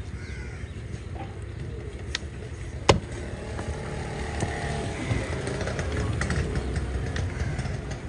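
A broad knife chopping fish on a wooden block, with scattered sharp knocks; the loudest single knock comes about three seconds in. A crow caws a few times over a steady low rumble.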